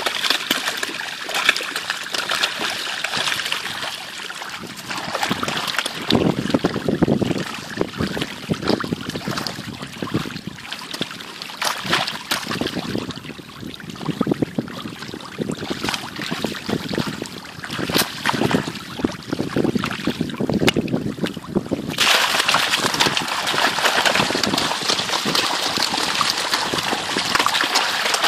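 Pond water splashing and churning as a crowd of feeding fish, snakeheads among them, thrash at the surface, with sharp slaps of fish breaking the water. About three quarters of the way in, the splashing turns louder and more continuous.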